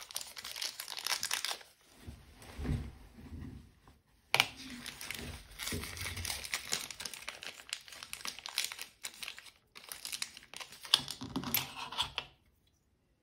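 Small plastic zip-lock bag of screws crinkling as it is handled and opened, in irregular rustles with a few sharp clicks; it stops about a second before the end.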